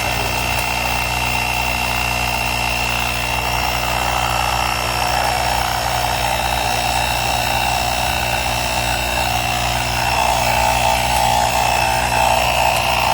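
Small portable air compressor built into a 10-in-1 car battery jump starter, running steadily with a hum and a high whine while it pumps up a flat tyre. It gets a little louder near the end.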